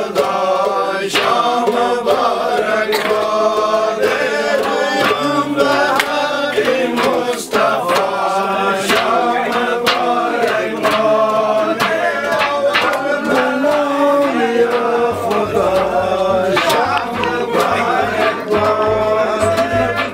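A group of men singing a traditional chant-like song together, with scattered sharp percussive hits. About three-quarters of the way through, a deep pulsing beat joins in.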